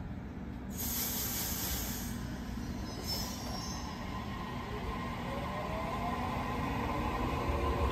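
Double-deck electric suburban train starting away from the platform: a burst of air hiss about a second in and a shorter one near three seconds, then a whine that climbs steadily in pitch as the traction motors pull the train up to speed.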